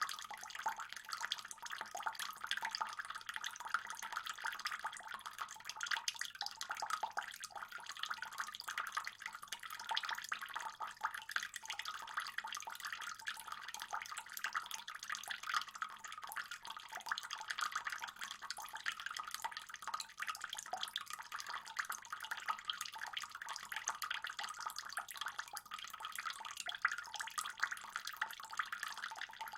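Water in a fish pond trickling and splashing steadily, with many small drips.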